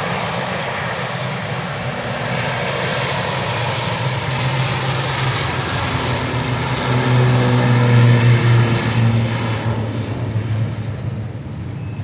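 ATR 72-600 turboprop airliner at takeoff power: its twin Pratt & Whitney PW127 engines and six-blade propellers give a loud, steady propeller drone with a low hum under a broad rush. It swells about seven to nine seconds in, then fades.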